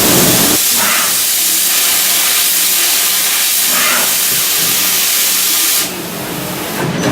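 Loud, steady hiss from a Dugard Eagle 1000 CNC vertical machining centre, like air or coolant blowing, over a faint low hum. It cuts off suddenly about six seconds in.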